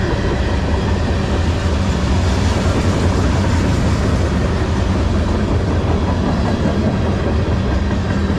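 Freight cars of a long manifest train rolling past at track side: a steady, loud noise of steel wheels running on the rails.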